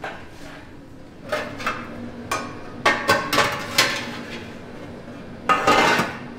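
Stainless-steel tray clattering and knocking as it is slid onto the rack of a high-pressure steam oven, a quick run of metal knocks. Near the end comes a louder, longer rattle as the oven's round door is swung shut.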